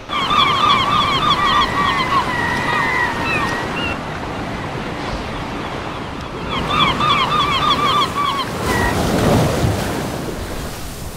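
Sea surf with gulls giving two quick runs of repeated calls, then a heavy rush of water near the end as a wave splashes over.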